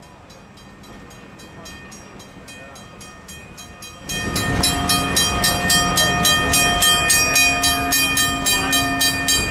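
Railroad grade-crossing warning bell ringing in quick, even strokes, faint at first and then suddenly loud about four seconds in as the rail car comes alongside the crossing signals, over the running noise of the moving rail car.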